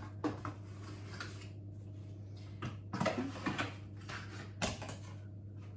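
Kitchenware being handled: a few light clatters and knocks in short clusters, over a steady low hum.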